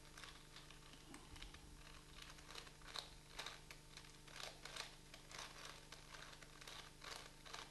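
Faint, irregular clicking and rattling of a plastic 4x4x4 Rubik's Cube as its layers are turned by hand.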